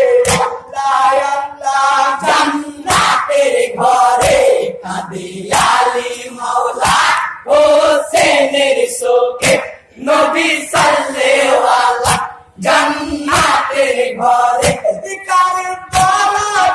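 Men singing a Bengali morsiya (jari) lament together, a Muharram mourning song, with sharp rhythmic hand strikes about every second or so keeping the beat.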